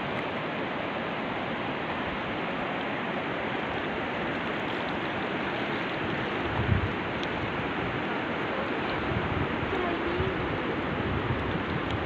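Fast-flowing whitewater of the Lidder River rushing over rapids: a steady, even rush of water, with a brief low bump about seven seconds in.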